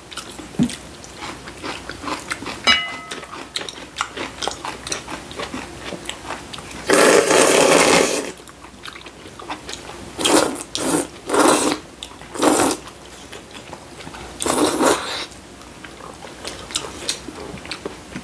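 Kalguksu noodles being slurped: one long loud slurp about seven seconds in, a quick run of shorter slurps a few seconds later, and another near the end. Soft chewing and small clicks of chopsticks on bowls between the slurps.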